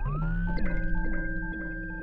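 Electronic synthesizer music: a held high tone over repeating low notes, with tones that slide up and down in pitch.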